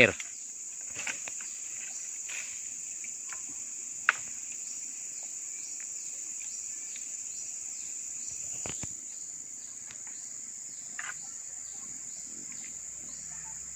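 Steady, high-pitched insect chorus shrilling without a break. A sharp click about four seconds in and a couple of fainter knocks later stand out above it.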